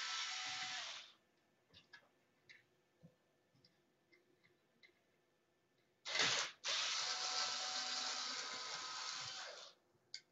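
Power screwdriver running in two runs while backing out screws: one stops about a second in, the other starts about six seconds in and runs for about three seconds. Small clicks and taps come between the runs.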